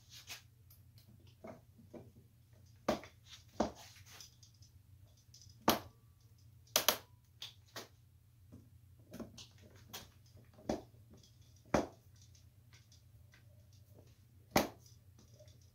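Hand tools being handled at a pegboard wall: irregular sharp clicks, knocks and a few metallic clinks, about a dozen, over a faint low hum.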